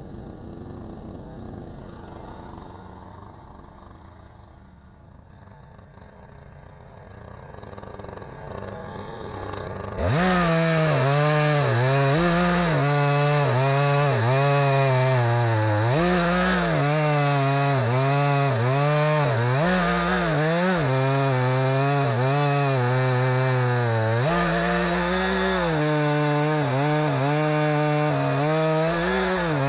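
A gasoline chainsaw with a freshly sharpened chain, running at full throttle while milling a log lengthwise into a beam. It cuts in suddenly about a third of the way in, after a quieter stretch. Its pitch repeatedly dips and recovers as the saw bogs under load in the cut.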